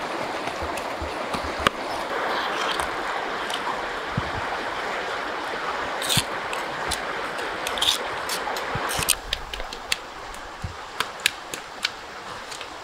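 Steady rush of flowing river water, with a metal spoon scraping ground paste out of a stone mortar twice in the middle. The water sound drops away about two-thirds of the way through, leaving a few scattered crackles from campfire embers.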